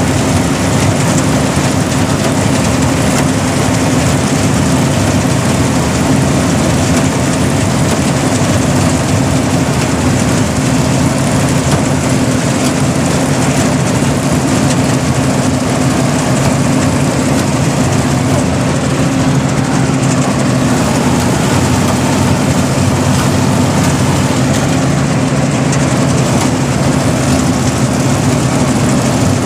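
Engine of a rice harvesting machine running steadily at constant speed, a loud, even drone with a clear pitch.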